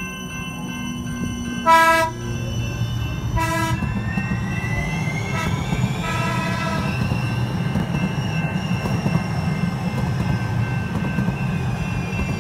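San Diego Trolley light-rail trains rolling past with a steady low rumble. A short horn blast sounds about two seconds in, another at about three and a half seconds, and a fainter one near six seconds. A rising electric motor whine is heard between the blasts.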